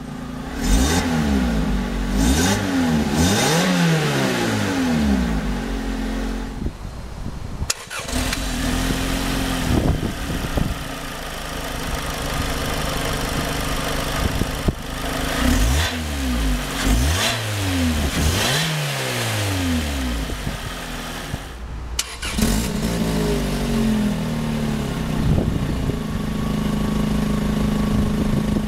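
The supercharged 1.8-litre Toyota four-cylinder of a 2011 Lotus Elise SC is blipped again and again from idle. Each rev rises and falls in pitch, with stretches of steady idle between. The sound breaks off abruptly twice.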